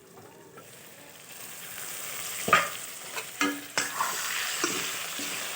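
Chicken curry with tomatoes sizzling as it fries in a pan, stirred with a few sharp scraping strokes of a spoon against the pan. The sizzle starts faint and builds from about a second in.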